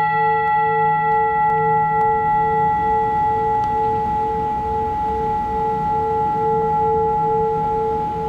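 A metal singing bowl ringing on after a single strike. A sustained hum with steady higher overtones wavers in an even beat several times a second and slowly fades near the end.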